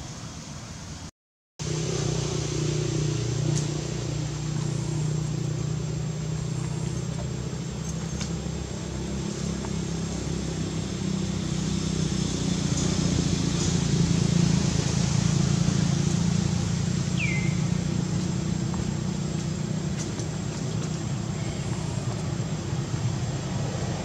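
Steady low engine hum of an idling motor. It cuts out completely for a moment about a second in, and a single short, high, falling chirp comes about two-thirds of the way through.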